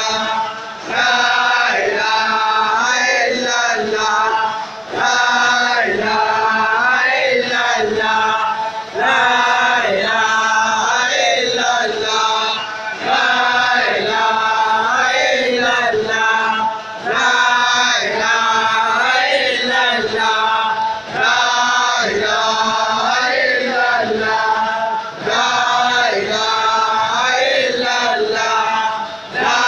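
Congregation of men chanting dhikr together in unison, repeating a sung phrase with a short break for breath about every four seconds.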